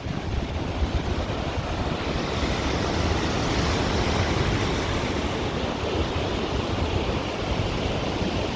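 Very loud, steady rush of river water churning through a rock canyon. The rush grows fuller about two seconds in, with wind rumbling on the microphone.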